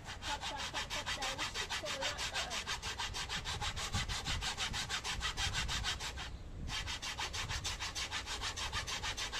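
Hacksaw cutting across a laminate floor plank in rapid, even back-and-forth strokes, stopping briefly a little past six seconds in, then sawing on.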